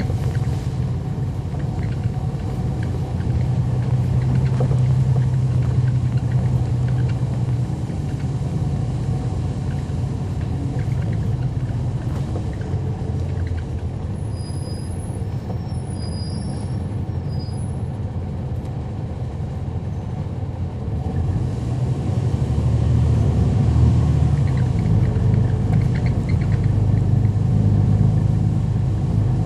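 Cummins ISL9 diesel engine and ZF Ecolife six-speed automatic drivetrain of a 2011 NABI 40-foot transit bus, heard from inside the bus while it drives. It is a steady low drone that eases off in the middle and builds again as the bus pulls away near the end.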